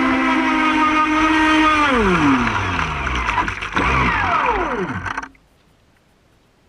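Brushless electric motor of a Feilun FT011 RC speedboat whining at a steady high pitch, then spinning down with a falling pitch after about two seconds, with a couple of brief blips that also fall away, before the sound cuts off about five seconds in.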